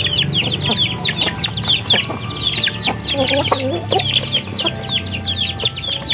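A brood of ducklings peeping continuously: many short, high, downward-sliding peeps overlapping one another.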